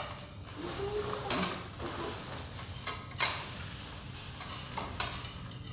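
Plastic bag crinkling and plastic plates knocking as packed food is unwrapped by hand and tipped onto the plates, with a few sharp clicks spread through.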